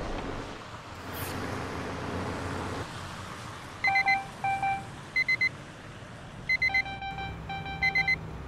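A truck's driver-assistance warning beeps sounding over a low, steady vehicle hum. About four seconds in, short electronic beeps start in pairs and repeat, with a longer run of tones near the end: the lane-drift and driver-alert warning.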